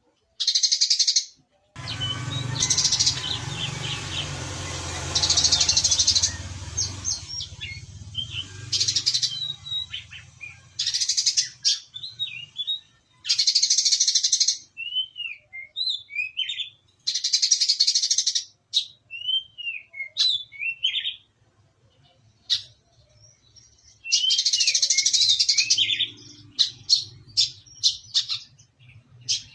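Brown-throated sunbird singing: rapid, buzzy high trills about a second long, repeated about seven times, with quick sharp chirps in between.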